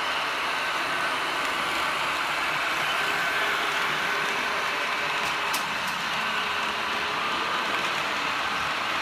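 Märklin HO-scale model train, an electric locomotive hauling coaches, running steadily over three-rail track with a whirring rumble of motor and wheels. A single sharp click comes about halfway through.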